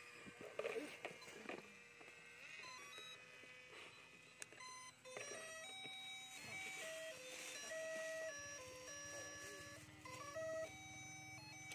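A simple electronic beeping melody of single notes stepping up and down starts about five seconds in and keeps going, with a low steady hum beneath it. Before it there are only faint clicks and rustles.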